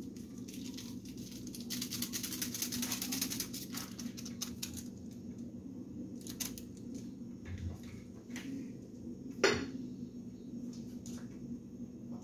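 A paper sachet of ready-made powdered seasoning shaken and tapped empty, a quick rattling rustle lasting a second or two. Scattered small clicks follow, and one sharp knock about nine and a half seconds in, over a low steady hum.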